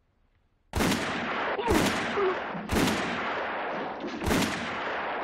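Four revolver shots in a room, about a second apart with a slightly longer pause before the last. Each rings out in a long echo.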